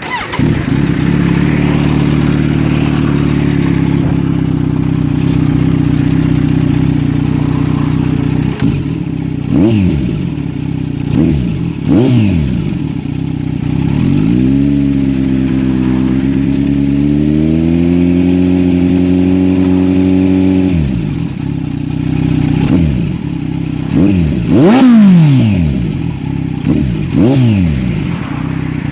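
Kawasaki Z900 inline-four engine through a replica Akrapovič shorty exhaust, idling steadily and then revved: several quick throttle blips that rise and fall in pitch, a hold at raised revs for about seven seconds midway, and more blips near the end, the loudest about three-quarters of the way in.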